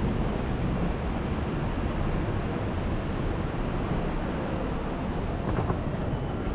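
Steady ambient din of a busy railway station walkway and concourse, a low rumble and hiss with no single distinct sound standing out.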